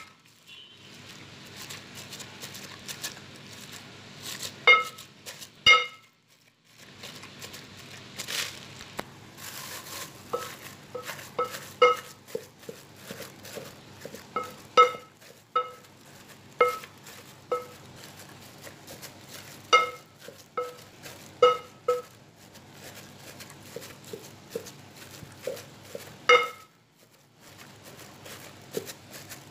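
A fist wrapped in a plastic bag pounds steamed glutinous rice and grated coconut into dough inside a rice cooker's metal inner pot. Irregular knocks against the pot ring out, about one or two a second, over steady plastic crinkling and squishing.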